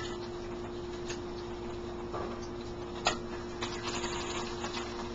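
Bacon strips frying in a pan, a faint even sizzle, with a few sharp clicks of the turning utensil against the pan, the loudest about three seconds in. A steady low hum runs underneath.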